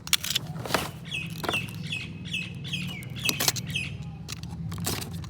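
Clicks and knocks of a toy box being handled and opened. From about a second in to about four seconds in, a run of about eight short, high chirps sounds, evenly spaced.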